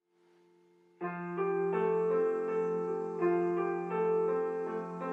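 Background keyboard music: a faint held note, then a melody of sustained notes that comes in louder about a second in.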